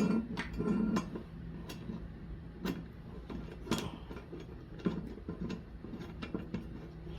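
Scattered, irregular light clicks and knocks as the hand planer's guide fence and wing nut are handled and fitted, over a low steady hum.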